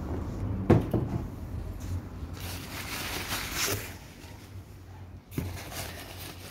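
A sharp knock about a second in, followed by a few handling clicks, then crumpled paper wrapping rustling as a hand reaches in among the paper-wrapped plants in a cardboard box.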